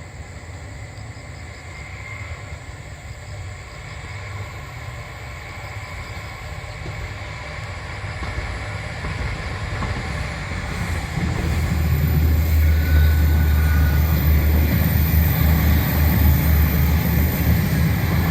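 A KiHa 47 diesel railcar approaching and passing: a rumble of engine and wheels on rails that grows steadily louder and becomes a heavy low rumble about 11 seconds in.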